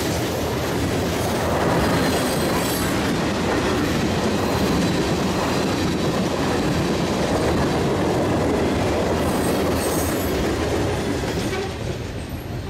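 CSX freight train rolling past, its wheels clattering on the rails with a faint high wheel squeal at times; the noise falls away near the end.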